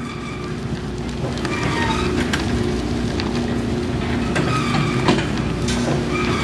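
Live-wall wood chip bin feed machinery running: a steady mechanical drone with short squeals recurring every two seconds or so and a few knocks, the loudest about five seconds in.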